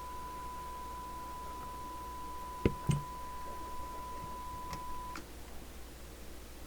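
Steady test tone from the CB radio's receiver audio, from a signal generator feeding the receiver during bench alignment. It cuts off abruptly a little after five seconds in, as the squelch is being adjusted. A loud knock and a second thump come near three seconds in, with faint clicks later.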